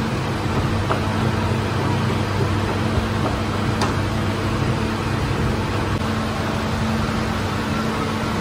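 Steady drone of bakery machinery: a motor hum under an even rushing noise, with a couple of light clicks.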